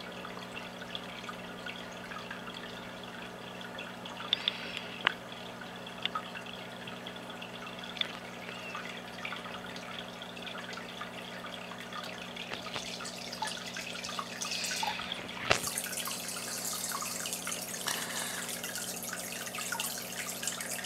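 Aquarium filter water trickling and dripping into the tank over a steady pump hum, with scattered drips. The trickle gets slightly louder about three quarters of the way through.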